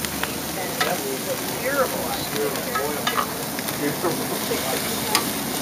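Chicken sizzling on the grates of an LP gas grill: a steady hiss with scattered crackles and pops.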